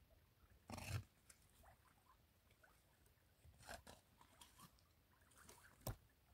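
Faint, scattered scrapes and clicks of a knife cutting into a freshly caught tuna, with a louder scrape about a second in and a sharp click near the end; otherwise near silence.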